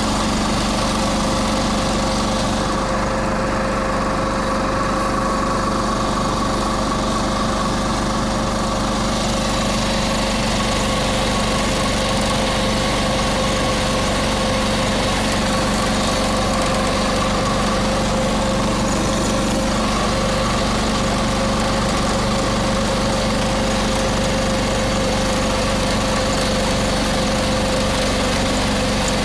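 John Deere 214 garden tractor's single-cylinder Kohler engine running at a steady speed, driving a front-mounted 37A snowblower that is throwing snow out of its chute.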